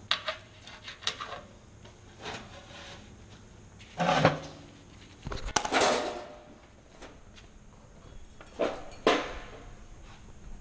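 Metal handling clatter: a bronze cymbal and steel weight bars knocking and scraping on a perforated steel welding table. A few separate clanks, the loudest about four seconds in with a short ring after it, then a sliding scrape and two more knocks near the end.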